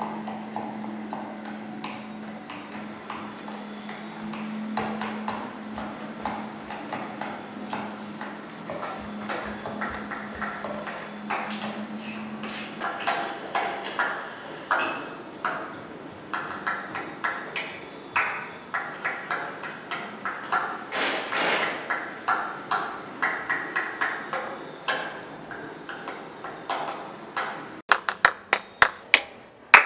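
Hands clapping irregularly, played back and ringing in a room. About two seconds before the end the claps turn sharp and quick, several a second. For the first dozen seconds there is only a low steady hum with scattered light taps.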